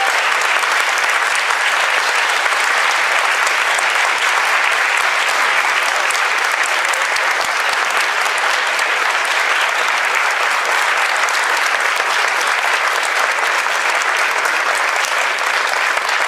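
Audience applauding: one long, steady round of dense clapping from many hands that holds at an even level throughout.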